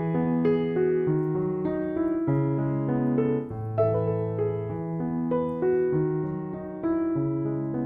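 Background piano music: a gentle piece of sustained chords and a melody over slow bass notes.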